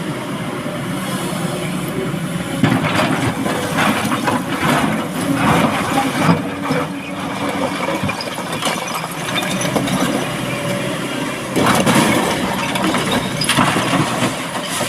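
Excavator loading rock into a dump truck: a diesel engine runs steadily while loads of rock and gravel crash and rattle into the steel truck bed, twice, first a few seconds in and again near the end.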